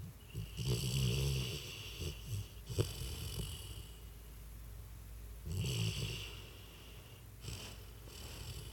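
Springer spaniel snoring in its sleep: a long raspy snore near the start and another about five seconds later, with softer snores between and near the end. A single sharp tap sounds about three seconds in.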